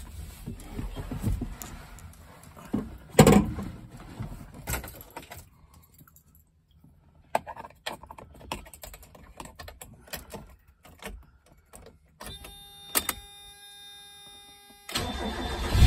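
Keys jangling and clicking in the cabin of a 1991 Mazda MX-5 Miata, then a steady buzzing tone for a few seconds once the ignition is switched on. About fifteen seconds in, the car's 1.6-litre four-cylinder engine starts from cold, loud and low.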